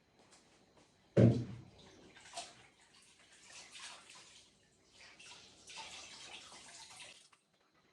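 A single loud knock about a second in, then water running and splashing in uneven rushes, heaviest near the end before it stops suddenly.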